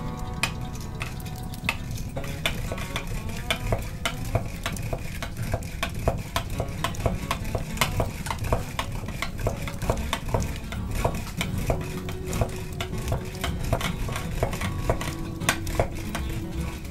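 Push-down spiral whisk beating raw eggs in a glass bowl: the metal spiral clicks and rattles against the glass in a quick, steady run of strokes with a wet sloshing underneath.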